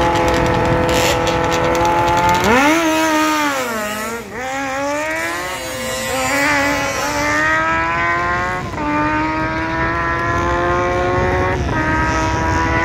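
Superbike engine held at steady high revs on the drag-strip start line, then launching about two and a half seconds in and accelerating hard down the quarter mile. The pitch climbs and drops back at each of several upshifts.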